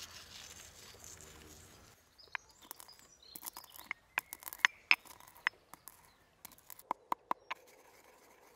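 Stone pestle crushing whole black peppercorns in a stone mortar: an irregular run of sharp clicks and knocks as the peppercorns crack. It starts about two seconds in and stops shortly before the end.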